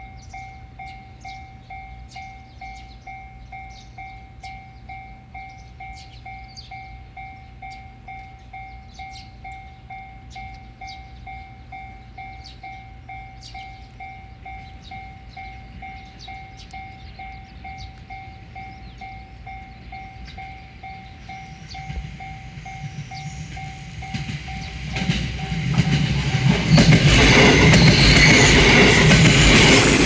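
Japanese level-crossing bell ringing a steady, repeating kan-kan, then a JR West 207 series electric train comes up and passes close by. Its noise swells over the last several seconds and grows loud enough to drown out the bell.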